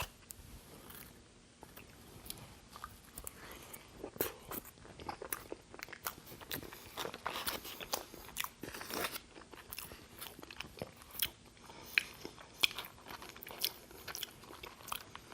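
Close-up chewing of a mouthful of poutine (fries, cheese curds and gravy): a run of irregular wet mouth clicks and smacks.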